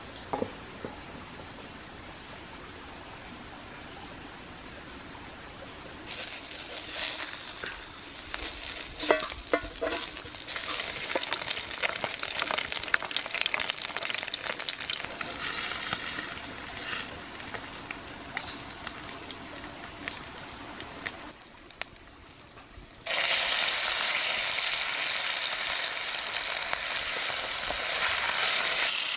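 Pork fat sizzling in a hot metal wok while chopsticks scrape and push it around the pan, starting about six seconds in. The sizzle drops away briefly about two-thirds through, then comes back louder and fuller as sliced raw pork fries in the oil.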